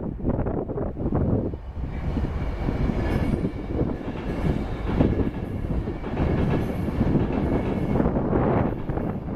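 Steam train hauled by LMS Jubilee Class 45699 'Galatea' rolling slowly over the pointwork: wheels rumbling and clattering over the points and crossings. A faint high squeal comes in about two seconds in.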